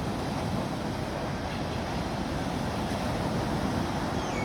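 Sea waves washing on the shore in a steady rush of surf.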